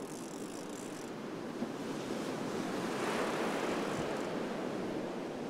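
Surf breaking on the beach, with wind on the microphone; the wash swells to its loudest about three seconds in.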